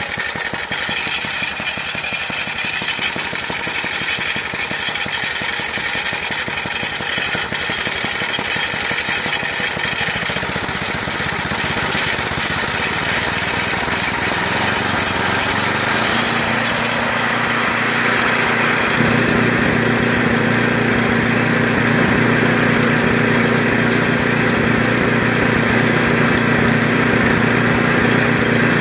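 10 hp snowblower engine running steadily. From about two-thirds of the way through, its sound shifts: a steady hum comes in and it gets a little louder.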